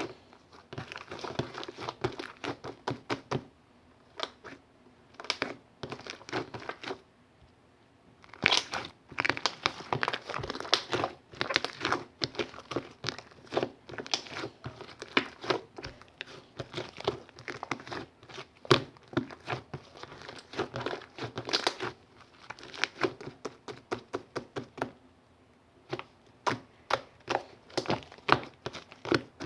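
Crinkling and crackling of something handled, in quick irregular runs of sharp crackles with brief pauses about four, seven and twenty-five seconds in.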